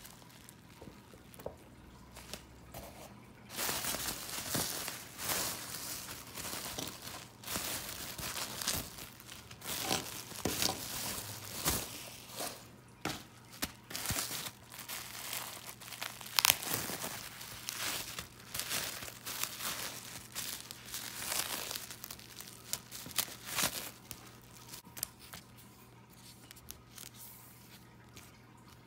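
Plastic bubble wrap being pulled open and handled: dense crinkling and rustling with many sharp crackles. It starts about four seconds in and dies down a few seconds before the end.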